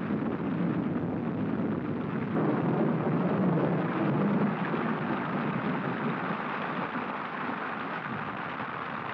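Steady rush of a rainstorm with wind on an old, dull-sounding film soundtrack.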